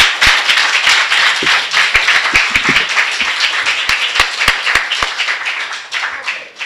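Congregation applauding, with a few sharp claps close to the microphone, dying away near the end.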